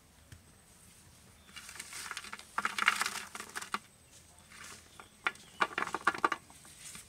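Pieces of cut vegetables handled and dropped onto a large metal plate: light clicking and rattling taps in two runs, one about two seconds in and another around five to six seconds.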